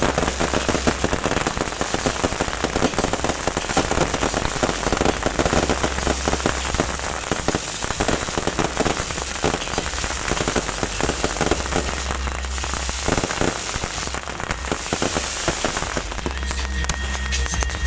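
A beehive fireworks rack firing thousands of bottle rockets at once: a dense, unbroken crackle of countless small pops and hisses that sounds like a downpour.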